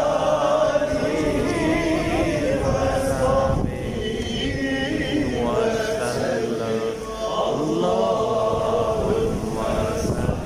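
A large crowd of men chanting together in unison, many voices blending into one sustained, wavering chant.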